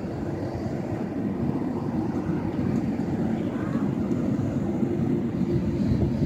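Jet airliner engines heard across an airport apron: a steady low rumble with a faint held hum, growing a little louder toward the end.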